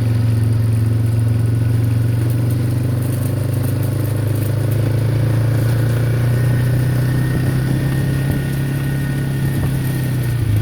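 Vehicle engine running at a steady low drone while driving.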